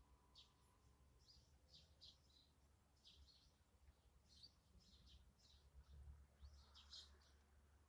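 Faint chirping of small birds, many short calls one after another, over a low steady rumble.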